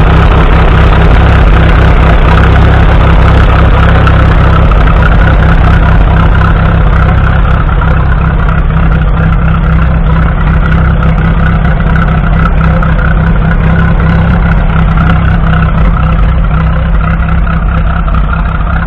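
1950 Fordson Major E27N's 4.4-litre four-cylinder side-valve engine, running on TVO (tractor vaporising oil), running steadily at idle. It gets a little less loud after about six seconds.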